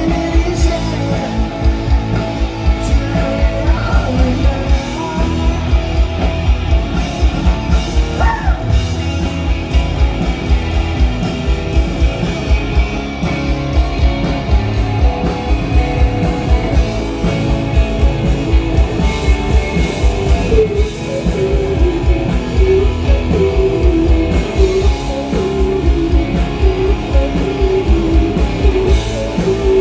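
Rock band playing live and loud: electric guitars, bass guitar and a drum kit keeping a steady driving beat.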